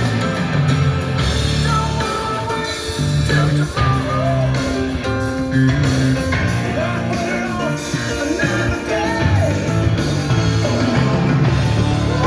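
Rock song with electric guitar, bass and a singing voice.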